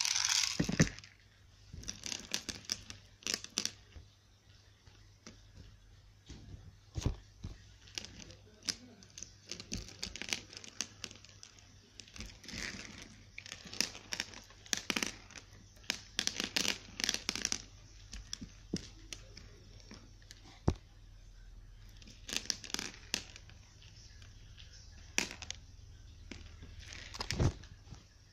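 Hands squishing and squeezing a brown slime packed with pearl beads: irregular sticky crackles and pops with short clicks.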